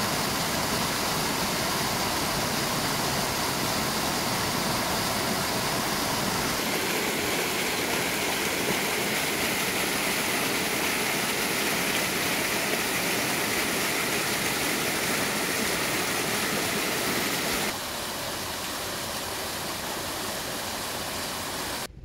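Rushing water of a mountain stream, a steady even rush; about eighteen seconds in it drops a little quieter and duller.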